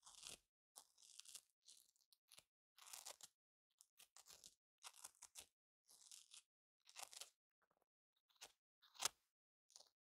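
Velcro (hook-and-loop fastener) being worked: a string of short crackly rips and scratches, about one every half second to a second, with a sharper, louder one about nine seconds in.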